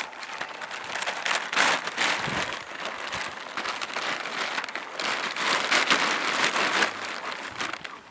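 Black plastic sheeting crinkling and rustling in irregular bursts as two German Shepherd puppies scramble over it.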